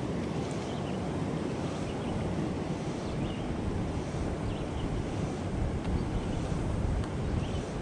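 Wind buffeting the microphone in uneven gusts over the steady rush of river current.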